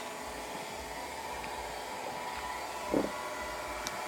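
Steady background noise, an even hiss with a faint hum, like a running fan, and one short soft sound about three seconds in.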